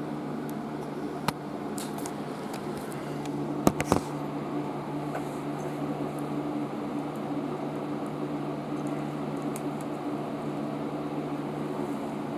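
Steady hum of a fan or air conditioner in a small room. A single sharp click comes about a second in, and a quick cluster of clicks follows near four seconds in.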